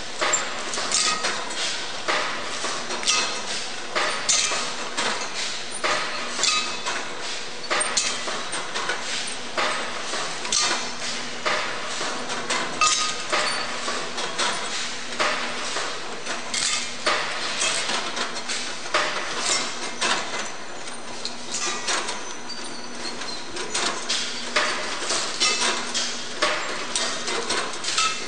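Golpack AL 20 bucket-elevator feeder and VF 160 packing machine running: dense, irregular clicking and clattering of moving metal and plastic parts, with a low hum that comes and goes.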